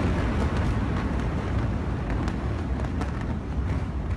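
Rumble from a huge explosion at a warehouse storing toxic chemicals: a loud, deep rumble under hiss that slowly fades, with a few faint sharp cracks.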